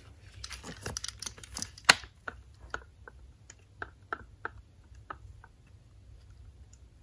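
A 50 lb adjustable dumbbell is lifted off the carpet by a rifle sling, and its plates, handle and the sling's clips clatter. A dense run of clicks comes first, the loudest near two seconds in, then scattered ringing clinks follow as it swings.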